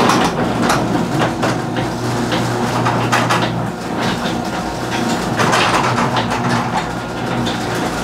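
Sectional garage door closing under its motorised opener: a steady motor hum with continuous clattering and rattling of the rollers running in the steel tracks.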